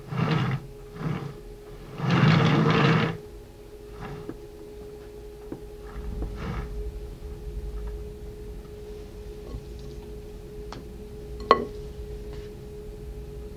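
Metal palette knife spreading and smoothing whipped cream across the top of a sponge cake: a few soft swishing strokes, the longest and loudest about two seconds in, then a single sharp click near the end, over a faint steady hum.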